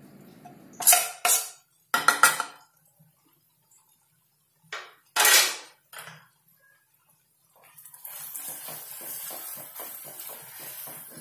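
Several sharp knocks and clinks on a non-stick kadai as spice powders go in. Then a silicone spatula stirs the thick masala paste, a steady scraping with quick repeated strokes.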